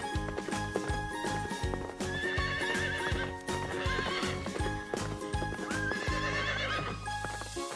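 A horse whinnying three times, each a quavering call, over background music with a steady beat.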